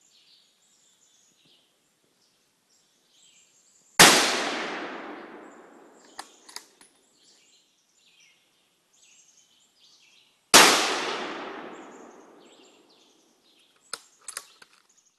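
A .204 Ruger bolt-action rifle firing two shots about six and a half seconds apart, each crack echoing away over about two seconds. A few light metallic clicks follow each shot as the bolt is worked.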